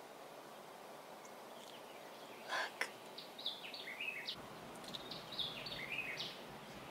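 Wild birds singing over a faint steady outdoor hiss: from about halfway through, short phrases of quick high notes that step downward in pitch. Two sharp clicks come just before the singing starts.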